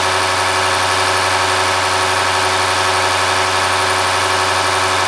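Bosch H-series eight-cylinder inline diesel injection pump running on a Bosch test bench, the bench drive and pump giving a steady mechanical hum with a dense hiss over it, no change in speed.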